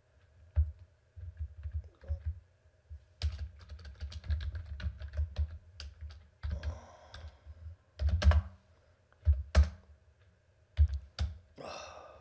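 Typing on a computer keyboard in irregular bursts of keystrokes, with a few louder, heavier key strikes.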